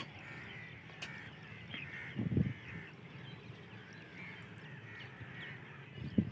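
Outdoor birds chirping and calling, many short calls scattered throughout, over a faint low rumble. A short low thump about two and a half seconds in is the loudest moment.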